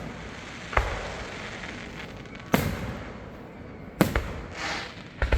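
Aerial fireworks bursting: four sharp booms about a second and a half apart, each trailing off in a rumbling echo.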